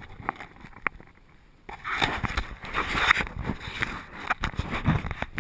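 Scratchy rustling and irregular knocks as something rubs and bumps against the camera's microphone. It starts suddenly about two seconds in, after a quieter stretch with a few single clicks.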